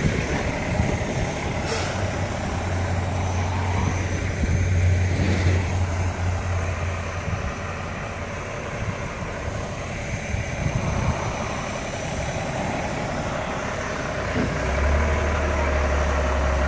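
Heavy diesel dump trucks pulling trailers drive past close by, their engines running with a low drone and tyres making road noise. There is a short hiss about two seconds in. A second truck's engine grows louder near the end as it comes past.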